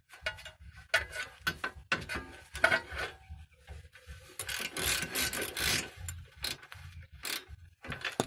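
Hand ratchet and socket clicking and rubbing in irregular runs as the nut joining the front lower control arm to the steering knuckle is run down, with a longer rasping stretch about halfway through.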